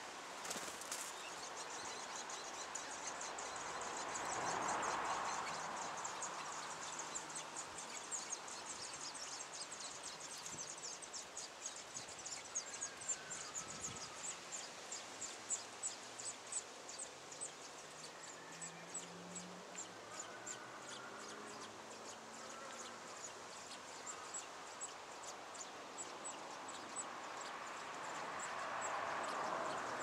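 Rapid, high-pitched ticking, about five ticks a second, loudest in the first half and thinning toward the end, with a few faint chirps and two brief swells of hiss-like noise.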